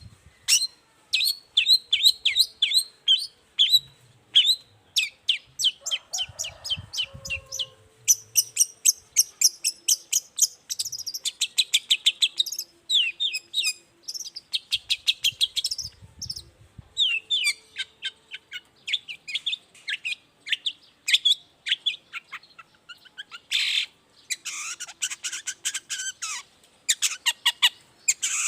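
Long-tailed shrike (cendet) singing a fast, continuous series of short, sharp high notes, with denser chattering runs.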